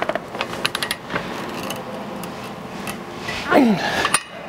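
Breaker bar and socket clicking and knocking on a chain roll's M20 flange nut as it is turned an extra 60 degrees past its 90 ft-lb torque, the final tightening stage. About three and a half seconds in comes a short loud squeak that falls steeply in pitch, then one more click.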